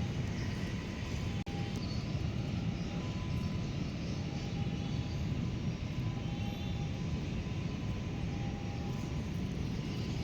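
Steady low rumble of outdoor background noise, with a faint tick about a second and a half in.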